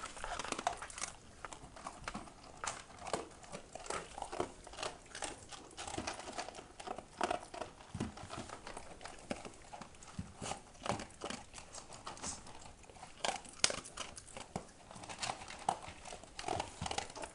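Dogs eating dry kibble: irregular crunching and clicking as they chew, with no steady rhythm.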